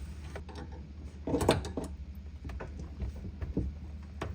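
A spanner tightening a compression nut onto a pipe fitting: a few short metallic clicks and knocks, a small cluster of them about a second and a half in, over a low steady hum.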